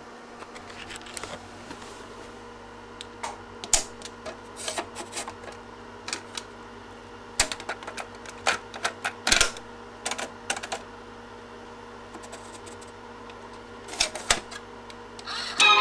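Irregular plastic clicks and clunks as a cassette is handled and pushed into a Tandberg IS10 language-lab student cassette deck, and its keypad buttons are pressed near the end. A steady hum runs underneath.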